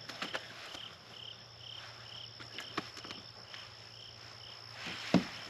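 A cricket chirping steadily, about two short chirps a second, over a constant high whine. A few light clicks and a sharper knock come near the end.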